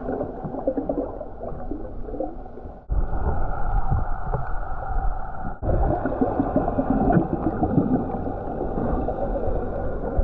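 Muffled underwater sound picked up by a camera held below the surface: a dull wash of water noise with gurgling and crackling. It breaks off abruptly twice, and a faint steady whine sits in it after the second break.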